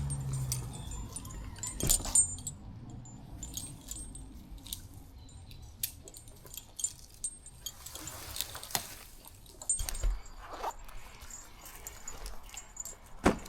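Light metallic clinking and scattered knocks from gear being handled, with the sharpest clinks about 2 s in and near the end.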